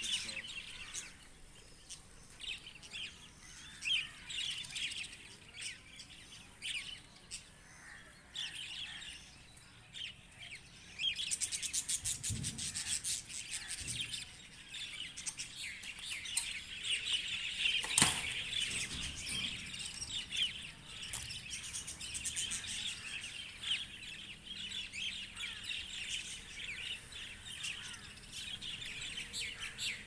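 A flock of budgerigars chirping and chattering in an aviary. The chatter grows denser about ten seconds in. A low thump comes soon after, and a single sharp click, the loudest sound, comes just past the middle.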